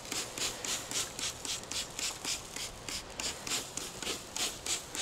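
Trigger spray bottle misting liquid over a rack of ribs on the grill: a short hiss with each squeeze of the trigger, about four squeezes a second.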